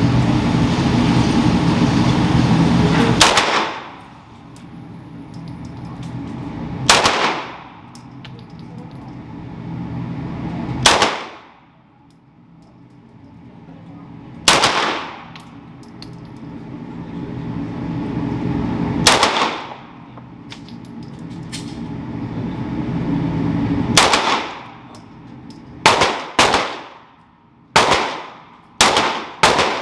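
Gunshots at a shooting range, about eleven single shots. They come every four seconds or so at first, then faster, several close together near the end.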